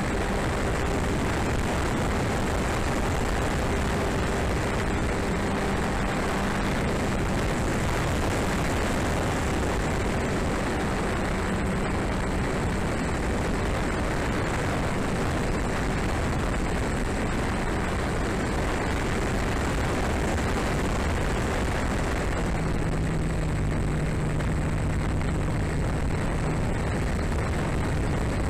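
Airflow rushing over a tail-mounted micro action camera's microphone on a flying RC model Drifter ultralight, with the model's propeller droning steadily underneath. The drone drops slightly in pitch for a few seconds near the end.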